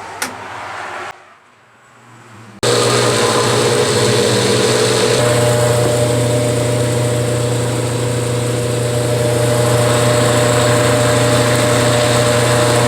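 General Electric washing machine running its spin cycle: a steady motor hum and drum whir that starts abruptly about two and a half seconds in. No knocking or grinding can be heard, a sign that the machine runs normally once the shipping rod is removed.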